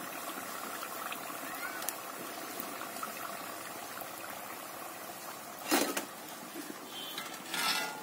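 Hot oil sizzling steadily in an iron kadai as batuk fritters deep-fry and are lifted out on a slotted spoon. A louder knock or scrape of the metal spoon against the pan comes about six seconds in, and another shorter noise near the end.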